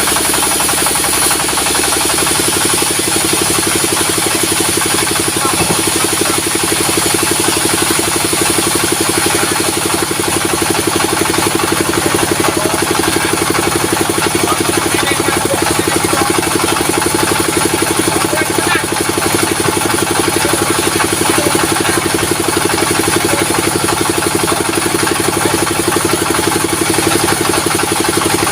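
Sawmill machinery running steadily: an engine's drone with a constant high whine over it.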